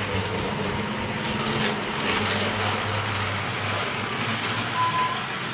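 HO-scale model KiHa 35 diesel railcars running along the layout track: a steady low motor hum over the rolling noise of the wheels on the rails, the hum dropping away about four seconds in.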